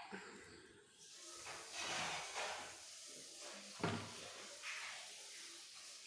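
Cockatiel hissing in several short breathy bursts, a defensive warning, with a single knock about four seconds in.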